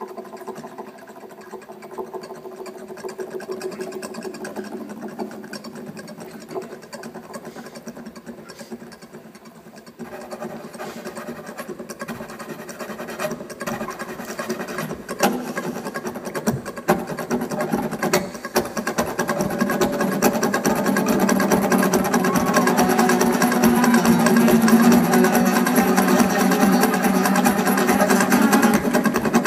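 Two acoustic guitars played live through a PA, with rapid rhythmic strumming; quieter at first, then building louder and denser from about ten seconds in.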